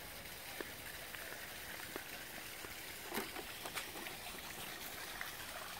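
Steady outdoor background hiss, with scattered faint clicks and taps.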